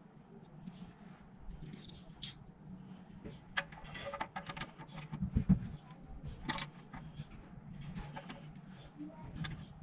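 Scattered light clicks and knocks over a steady low hum, with the loudest knock about five and a half seconds in.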